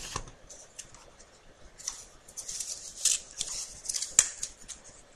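Rustling and scraping of a packaging sheet against the plastic body of a Cooler Master Ergostand laptop cooling pad as it is handled and unwrapped. Scattered small clicks are heard, with one sharp click about four seconds in.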